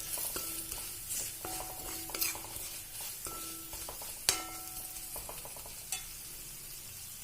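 Spoon stirring pickle powder into a pan of hot oil with fried spices: a steady sizzle with scrapes and knocks of the spoon against the pan, several of which leave the pan ringing briefly. The hardest knock comes about four seconds in.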